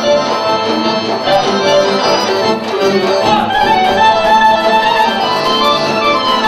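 Macedonian folk dance tune played by a band, with violin and accordion carrying the melody.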